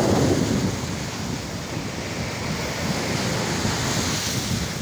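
Sea surf washing over a sandy beach in shallow water, with wind buffeting the microphone; the hiss of a wave rushing in swells near the end.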